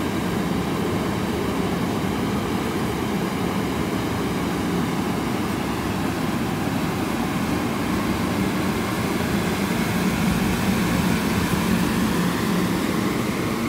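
Amtrak passenger coaches rolling past a station platform: a steady rumble of train wheels on the rails with a low hum, growing slightly louder about ten seconds in.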